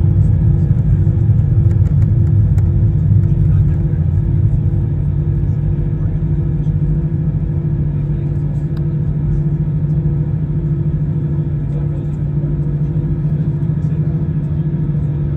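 Steady low engine hum with a faint pulsing tone above it, heard from inside a vehicle or cabin. It eases slightly after the first few seconds.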